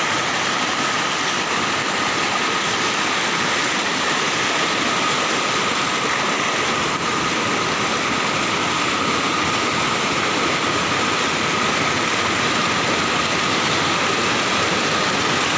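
Muddy flash-flood water rushing in a torrent: a steady, unbroken noise of fast-moving water.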